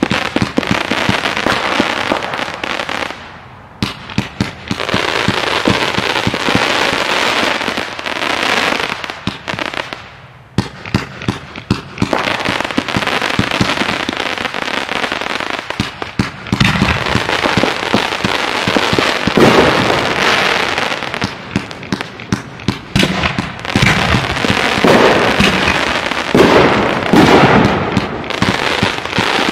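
Fireworks finale: a dense, near-continuous run of bangs and crackle from launching and bursting aerial fireworks, with two short lulls about three and a half and ten seconds in.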